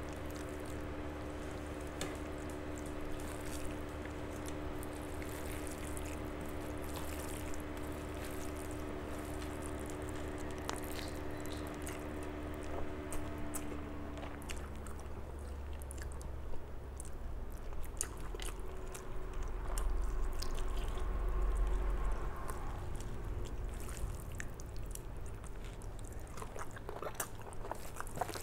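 Eating sounds of rice and mutton curry eaten by hand: fingers squishing rice into the gravy, then chewing with wet smacks and small clicks. A faint steady hum underneath stops about halfway through.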